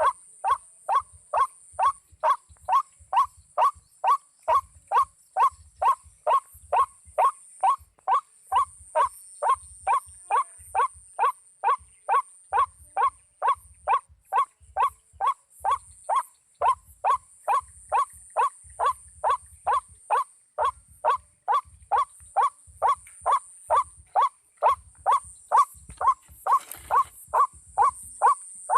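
White-breasted waterhen 'ruak-ruak' call repeated very evenly about twice a second, the steady looped lure call used to draw waterhens into a trap, over a steady high-pitched hiss.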